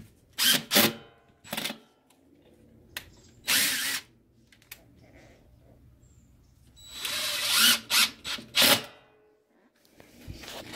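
DeWalt cordless driver running in short bursts as it drives screws through a screen door's hinge rail into the door frame. There are a few quick runs in the first two seconds, one more about three and a half seconds in, and a longer run followed by two short ones about seven to nine seconds in.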